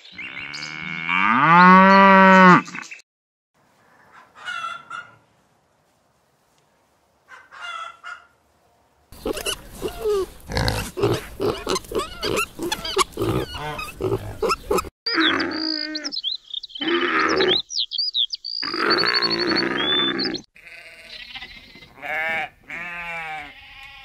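A cow mooing in one long call at the start, then pigs grunting rapidly for several seconds, followed by high squeals. A sheep bleats near the end.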